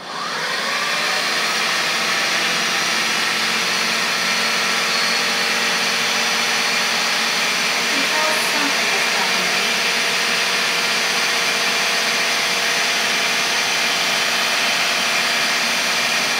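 Countertop food processor running on its dough setting, mixing flour, salt and eggs into pasta dough that is still crumbly like pebbles. The motor speeds up at the start and then runs loud and steady.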